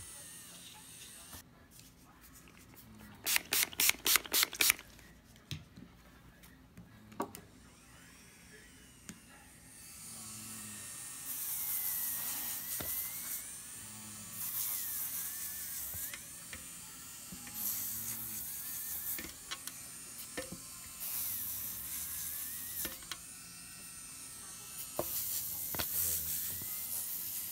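Electric nail drill running with a pink ball-tipped bit worked over the nail edge and cuticle in repeated passes of a second or two. Each pass brings a hissing rub and a wavering whine. A quick run of sharp clicks comes about three seconds in.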